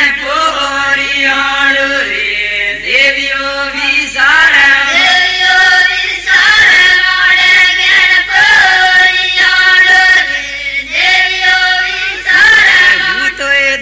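Voices singing a devotional folk song in a chant-like melody, loud and continuous with short breaks between phrases.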